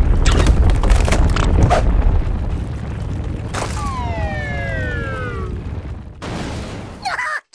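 Cartoon earthquake sound effects: a heavy rumble of shaking ground with many sharp cracks of splitting earth. About four seconds in, a long falling pitched tone slides down. Near the end there is a short noisy burst, and then the sound cuts off suddenly.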